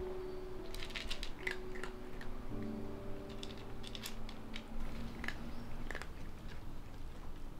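A cat crunching dry kibble: quick, irregular crunches and clicks. Soft background music with sustained low notes runs underneath and fades out near the end.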